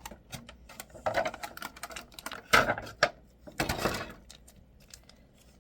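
Rustling and sharp clicks of pieces from a toy slime kit being handled and unpacked, in three short bursts with clicks between them.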